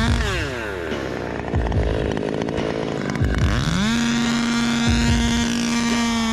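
Two-stroke chainsaw engine: it drops in pitch right at the start and runs rough and uneven for about three seconds, then climbs back to a steady high-pitched full-throttle whine and holds it.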